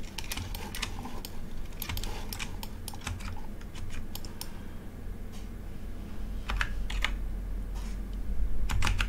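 Computer keyboard keystrokes, irregular and scattered, with quick clusters of keys about six and a half seconds in and again near the end, over a low steady hum.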